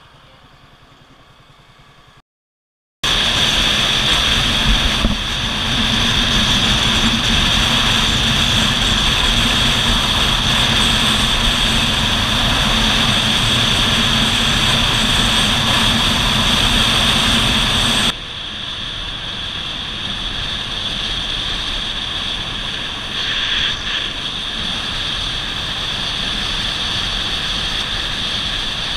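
Motorcycle riding at road speed, its engine running under loud, steady wind rush on the microphone. The sound starts suddenly after a short moment of silence near the start, and drops abruptly to a quieter level about two-thirds of the way through.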